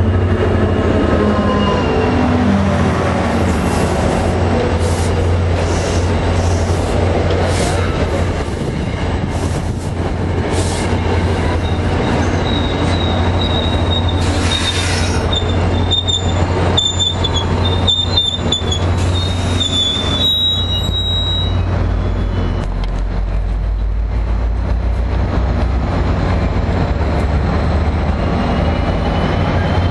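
NJ Transit GP40PH-2B diesel locomotive arriving with a passenger train. The engine's pitch drops as it passes, then the coaches' wheels click over rail joints, and a high squeal follows as the train slows to a stop. A steady low engine hum runs under it all.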